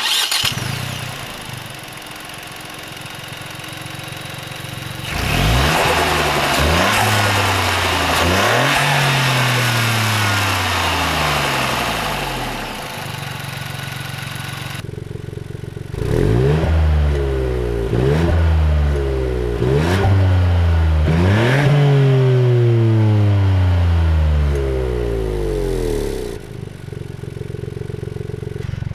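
Ford Fiesta ST Mk8's 1.5-litre turbocharged three-cylinder engine starting up and settling to idle. About five seconds in it is revved in a series of quick blips, each falling back. After a short idle it is revved again in a second run of blips, then returns to idle near the end.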